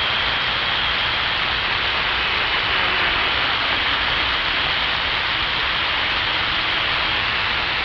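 CB radio static: a steady, even hiss between transmissions, with a faint thin high tone running through it.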